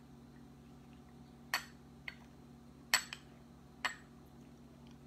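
A metal spoon clinking against a small ceramic bowl as it works in the bowl: about five sharp clinks at uneven intervals, three of them louder, each ringing briefly.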